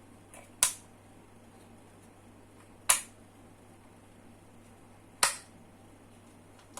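Three sharp, separate clacks about two seconds apart, each dying away quickly, with a faint tick just before the first and another near the end: single keystrokes on a mechanical keyboard with Outemu red switches.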